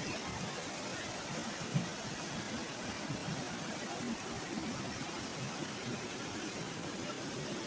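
Steady rushing of river water flowing toward a weir.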